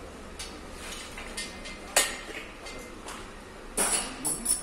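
Metal clanks and clinks of tools against car engine parts: one sharp knock with a brief ring about two seconds in, then a quick cluster of three or four clanks near the end.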